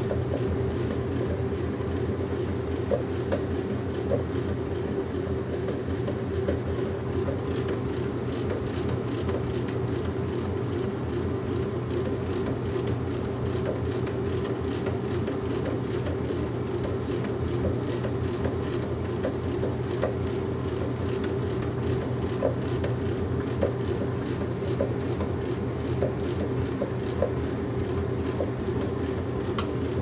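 Washing machine running: a steady mechanical hum and whoosh of the turning drum, with light irregular clicks.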